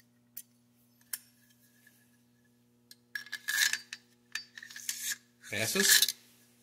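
LMT Enhanced bolt carrier sliding in and out of an AR upper receiver during a gas key alignment check, metal rubbing on metal in a few scraping strokes after a couple of light clicks. The check passes.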